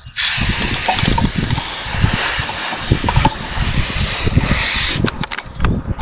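Water spraying from a hose nozzle in a steady hiss, rinsing out the body cavity of a gutted chicken. It cuts off about five seconds in, followed by a few sharp clicks.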